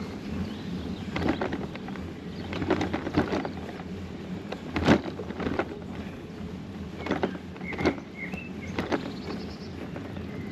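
Irregular knocks and rattles from heavily loaded touring bicycles being handled over rough ground, the loudest knock about halfway through, with a couple of short squeaks near the end.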